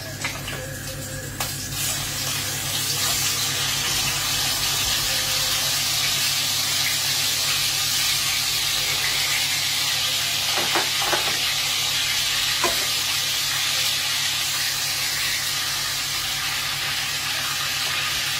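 Lamb steaks sizzling as they sear in a hot frying pan. The hiss builds over the first few seconds as the steaks go in, then holds steady, with a few light knocks against the pan.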